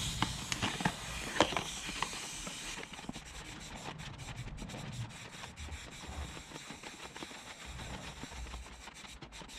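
Aerosol can of fully synthetic chain lube hissing as it sprays onto a motorcycle's rear drive chain at the sprocket, with a few light clicks and knocks in the first couple of seconds.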